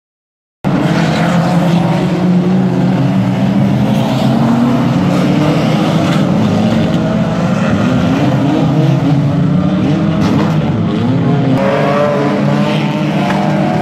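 Engines of a pack of banger racing cars revving hard as they race round the track, several engine notes rising and falling over one another. It starts suddenly about half a second in.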